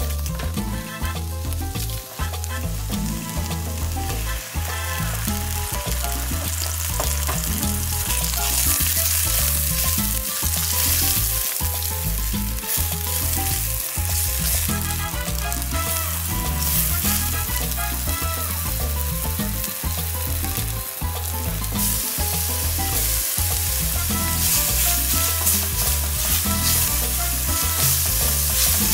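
Sliced sausage frying in oil in an enamelled pan, sizzling and stirred with a spatula. The sizzle grows louder about eight seconds in. Background music with a steady beat plays underneath.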